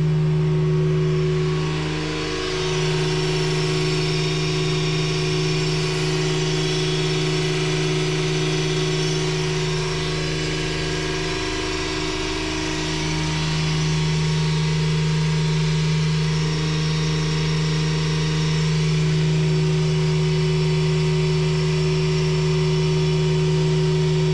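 ECH2O Tec watermaker (seawater desalinator) running: its electric high-pressure pump and feed pump give a steady, even hum. The unit is working properly after its rebuild, with a new high-pressure pump and a new feed pump.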